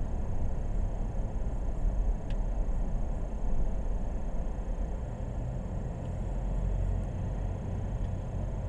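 Low, steady rumble of a car's engine and tyres heard from inside its cabin as it rolls slowly in traffic.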